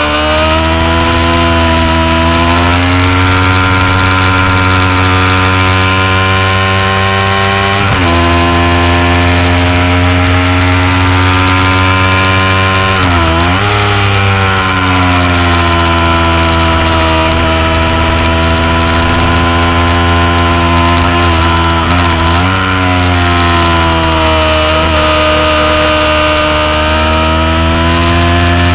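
Kawasaki Ninja 250R's parallel-twin engine running hard at high revs. The pitch climbs at first and drops at a gear change about eight seconds in. It dips sharply and recovers about a third of the way through and again past twenty seconds, then climbs once more near the end.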